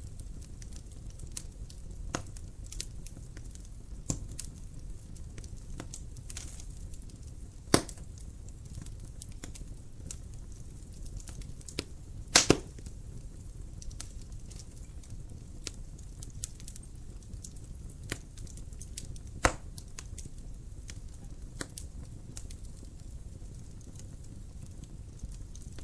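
Wood fire in a fireplace burning with a steady low rumble and scattered crackles, and a few louder pops, the loudest a double pop about halfway through.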